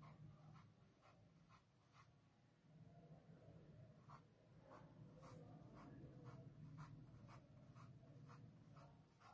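Faint marker pen strokes on a white board: a series of short dabs and scratches, about two a second, as a chain of small circles is drawn.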